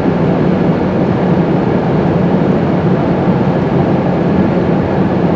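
Steady road and engine noise inside a moving car's cabin, a loud even rush with a low hum underneath.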